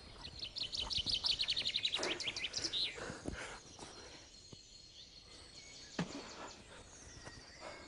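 A songbird singing a rapid trill of repeated high chirps for about two and a half seconds, the last notes dropping in pitch, over faint outdoor background noise; a single short click about six seconds in.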